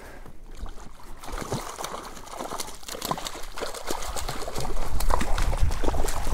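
Water splashing and trickling as a hooked tiger trout is brought to the surface and landed. It grows louder and busier toward the end.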